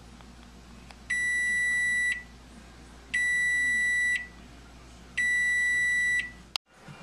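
Microwave oven's end-of-cycle signal: three long, high beeps about two seconds apart, over a low steady hum that stops abruptly near the end.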